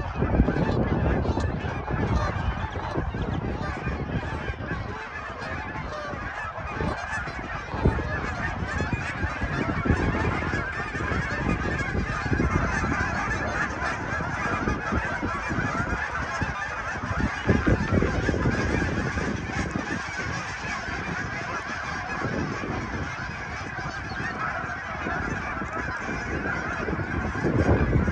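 A large flock of waterfowl flying overhead, calling continuously in a dense, overlapping chorus of many birds.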